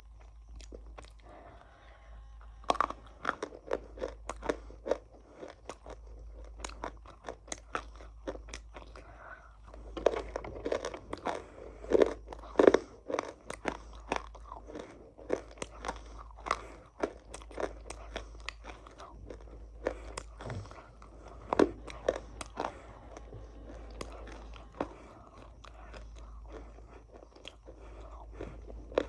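A person biting into and chewing a crunchy food close to the microphone: irregular sharp crunches, busiest about a third of the way in and again in the last third, over a faint low hum.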